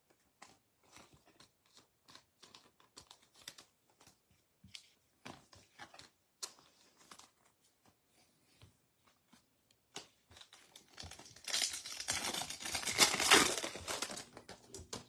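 Wrapper of a Bowman baseball card pack being torn open, a loud crackling crinkle for about three seconds near the end. Before it come faint clicks and light rustles of cards being handled.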